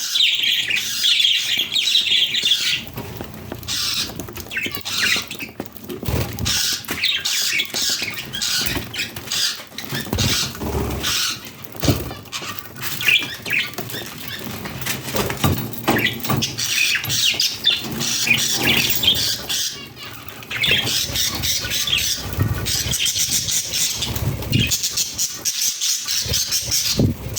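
Several budgerigars chirping and warbling without pause in a busy, high-pitched chatter, mixed with frequent short clicks and knocks.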